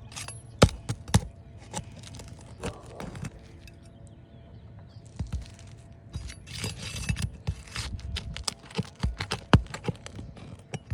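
Metal roofing tool clicking, knocking and scraping against shingles and roofing nails as nails are pried out of the shingles. The sharp irregular clicks ease off briefly near the middle, then come thick and fast again.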